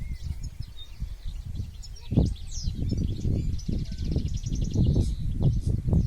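European goldfinch (Moroccan parva race) singing faintly: high twittering chirps with a rapid, evenly pulsed trill in the middle. A louder, uneven low rumble of wind buffeting the microphone runs under it.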